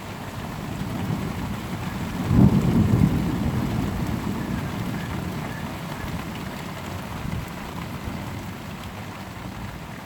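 Thunder following a lightning flash: a low rumble builds from about a second in, comes loudest suddenly at about two and a half seconds, then rolls away over several seconds. Heavy rain falls steadily throughout.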